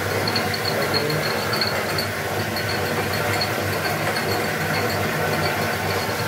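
Small farm hydroelectric turbine and belt-driven generator running with a steady mechanical hum and rattle. A faint high chirp repeats quickly several times a second.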